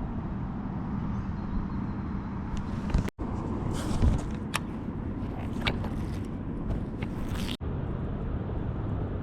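Steady low rumble of distant road traffic, with a few short clicks and taps in the middle. The sound cuts out completely for an instant twice.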